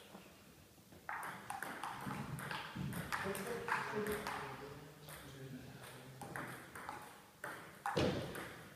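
Table tennis rally: the ball clicking back and forth off the bats and the table in quick succession, starting about a second in, in a large hall.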